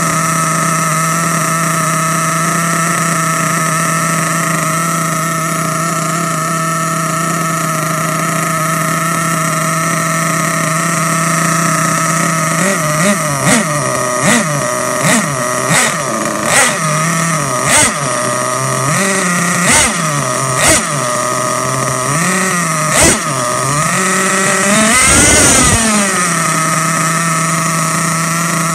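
A 1/8-scale RC car's .28 nitro engine idling steadily. About halfway through it gets a series of about a dozen short throttle blips. Near the end comes one longer rev before it settles back to idle.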